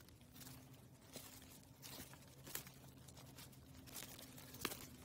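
Footsteps on dry leaf litter on a forest trail, at a steady walking pace, with one louder step near the end.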